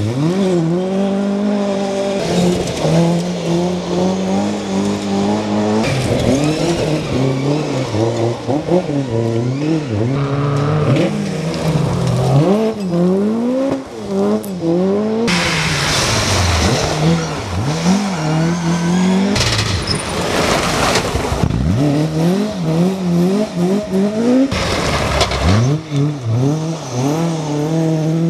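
Mk2 Ford Escort rally cars driven hard on gravel, engines revving with the pitch climbing and dropping sharply at each gear change and lift, in several separate passes. About halfway through comes a few seconds of loud rushing tyre-and-gravel noise.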